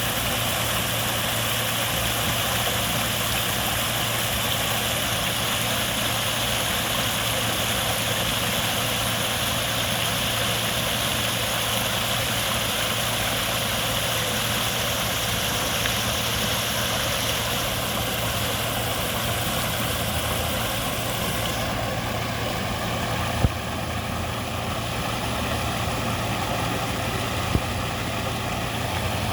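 Waterfall rushing in a steady, unbroken roar of falling water, with a couple of short sharp clicks in the second half.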